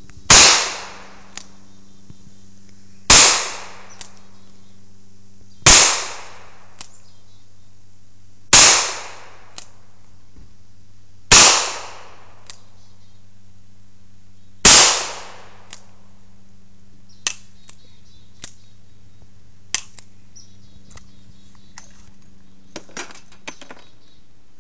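Six revolver shots from a Ruger Security-Six firing light handloaded 148-grain full wadcutters, spaced about three seconds apart, each with a short echoing tail. A few faint clicks follow after the sixth shot.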